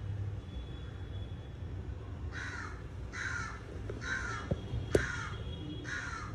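A crow cawing five times, about once a second, with a steady low hum underneath and two sharp clicks near the end.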